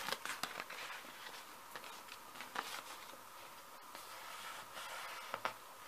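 Faint rustling of computer paper as a hand rubs and presses it down onto a gel printing plate, with a few soft clicks of the paper being handled.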